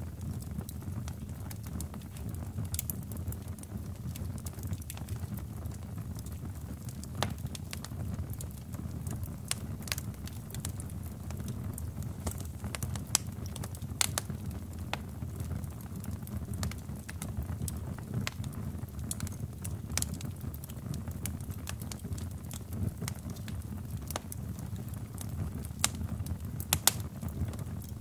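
A plastic mini desk fan burning: a steady low rush of flame with scattered sharp crackles and pops from the burning, melting plastic, a few louder pops about halfway and near the end.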